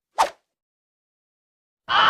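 A single short, sharp sound-effect hit about a quarter second in, then dead silence; just before the end a new pitched, music-like sound effect begins.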